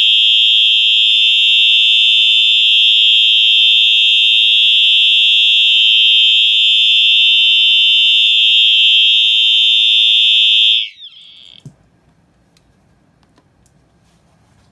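A 1992 Wheelock AES-EL1-WS-24 electronic fire alarm horn/strobe sounding its horn tone at high volume: one continuous, incredibly loud, high-pitched tone that cuts off about 11 seconds in.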